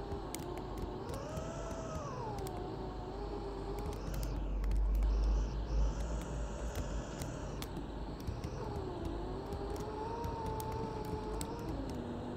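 Mercedes-Benz OC500LE single-deck bus running: a steady drone with a whine that rises and falls in pitch as the bus speeds up and slows, light clicks and rattles, and a heavier low rumble about four to six seconds in.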